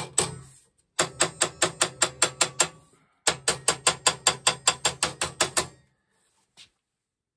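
Cobbler's hammer tapping a folded sheet-steel flange flat against a steel bench edge. The strikes come quickly, about five a second, in two runs with a brief pause between them.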